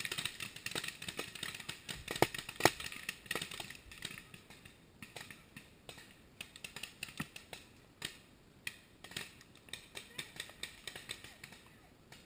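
Paintball markers firing: irregular sharp pops, thick for the first few seconds with two louder shots close together about two seconds in, then thinning out to scattered, fainter pops.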